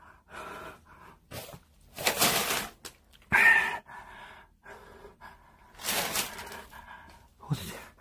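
A person breathing hard in distress, with loud sharp breaths about two seconds in and again about six seconds in, and quieter breaths between.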